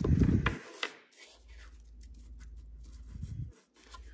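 Steel AK parts handled on a workbench: a loud clatter and clicks in the first half second as the mag catch comes out of the receiver and the receiver is set down, then faint clicks and scrapes. Near the end comes a light scrape of a flat hand file starting on the mag catch.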